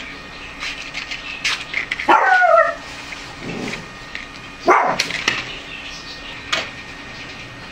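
A dog gives one high yelp that falls in pitch about two seconds in. A couple of seconds later comes a short, sharp sound, with a few faint light clicks around it.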